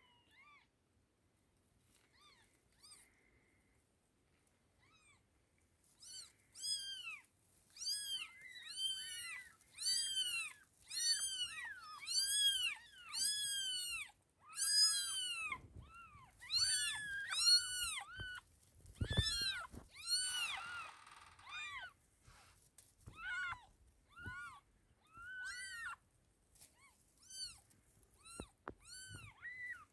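Newborn kittens mewing: high, thin calls that rise and fall in pitch, faint at first and then coming about once a second from about six seconds in. A short thump and a brief rustle come about two-thirds of the way through.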